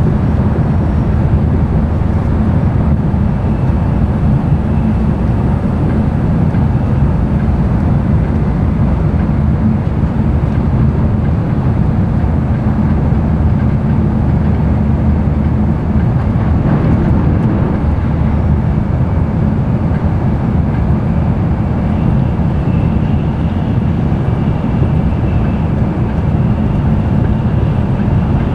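Cabin running noise of an N700-series Shinkansen train at speed: a steady low rumble and rushing noise from the wheels on the rails and the air, heard from inside the passenger car.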